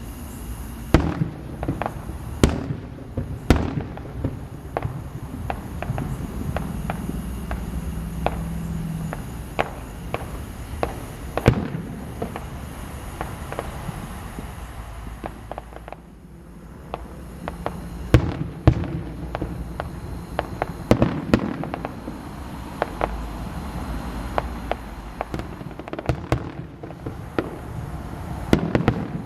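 Fireworks display: sharp bangs and crackles come every second or so over a steady low rumble of bursts. They ease off briefly about halfway through, then pick up again.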